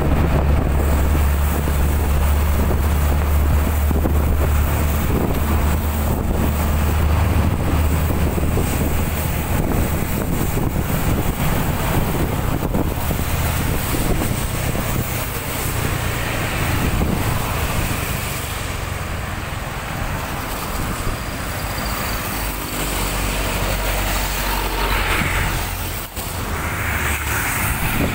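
Strong wind buffeting the microphone over road traffic noise. The deep rumble is heaviest in the first half and eases off, with a few passing vehicle sounds near the end.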